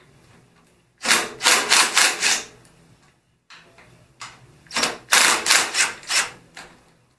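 Ratcheting clicks from a socket tool working a motorcycle fuel tank's front mounting bolt, in two spells of several quick strokes, about a second in and again about five seconds in.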